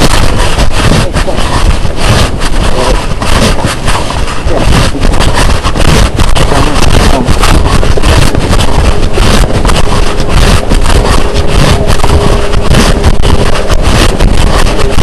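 Loud, continuous rumbling and buffeting of wind on the camcorder's microphone, with a faint steady hum partway through.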